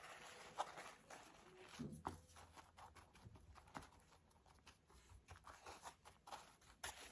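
Near silence with faint, scattered small taps and rustles from a brush and tissue paper being handled while decoupaging a piece.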